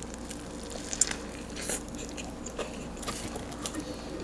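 Close-miked chewing of a crispy fried chicken sandwich: soft crunches and wet mouth clicks, with a slightly louder crunch about a second in.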